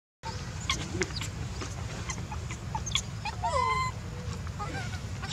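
A baby macaque gives one short high call that slides down and back up in pitch about three and a half seconds in, over a steady low rumble and scattered small clicks.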